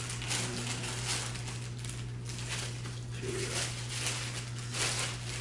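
Plastic packaging bag crinkling and rustling in repeated short bursts as a bagged tripod part is handled, over a steady low hum.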